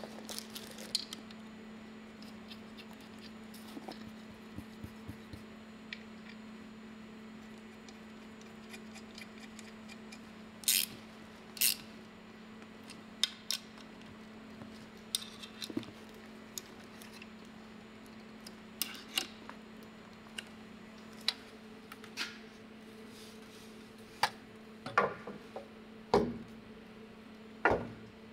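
Tools and metal parts being handled: about a dozen short, sharp clicks and clinks at irregular intervals, most of them in the second half, over a steady low hum.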